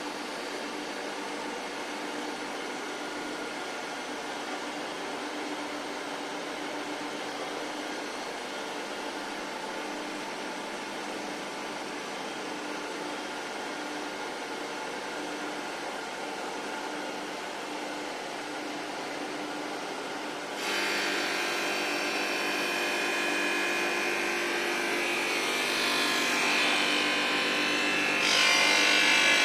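Glass edge-grinding machine running steadily. About twenty seconds in it turns louder with a harsher, higher grinding sound, and it steps up again near the end.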